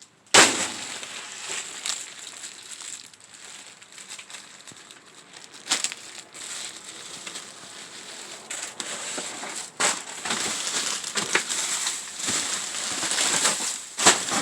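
Plastic bags and food packaging rustling and crinkling as hands dig through discarded groceries in a dumpster, with a few sharp knocks.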